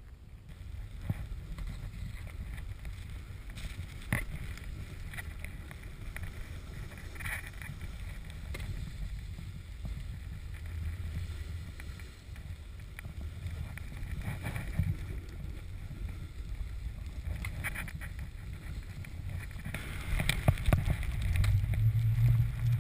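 Wind rumbling and buffeting on an action camera's microphone, mixed with a snowboard sliding and scraping over snow. There are a few sharp knocks, and it gets louder near the end.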